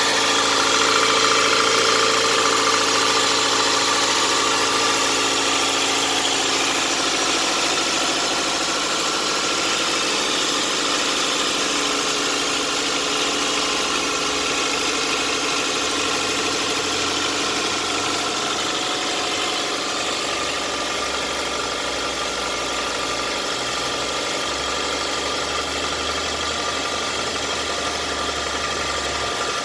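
Toyota 1AZ-FE 2.0-litre inline-four petrol engine idling steadily, with a beginning knock that the owner puts down to the piston and connecting-rod group of cylinder 4 on a 400,000 km engine.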